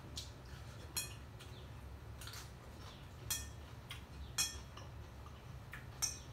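Chopsticks and a spoon clinking against a glass bowl while stirring and scooping noodles: about six sharp, separate clinks, each with a brief ring, spaced irregularly about a second apart.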